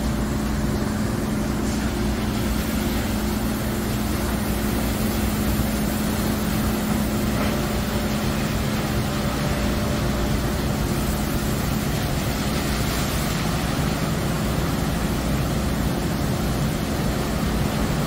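Car wash tunnel equipment running: a steady motor hum over a constant rushing noise, with no change in level.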